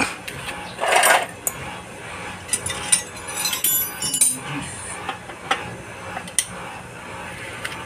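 Metal hand tools clinking and tapping as a socket and extension bar are handled and fitted on the CVT cover bolts of a Suzuki Address scooter, with a louder metallic rattle about a second in and scattered short clinks after.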